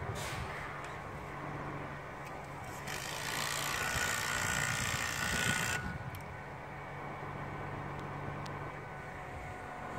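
Bucket truck engine running steadily with a low hum. A loud hiss starts abruptly about three seconds in and cuts off suddenly near the six-second mark.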